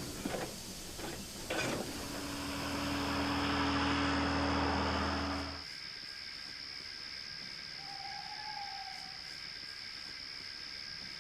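Steam locomotive sound effects: two sharp clanks, then a loud hiss of steam over a low steady hum that cuts off suddenly about halfway through. A quiet steady background with a high whine follows.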